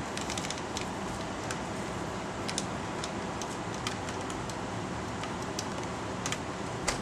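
Quiet room tone: a steady hiss with scattered small clicks and taps, one sharper click near the end.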